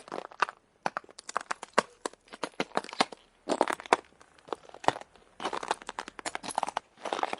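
Footsteps on ice, each step a cluster of sharp crunching and cracking crackles, coming in irregular groups with short gaps between.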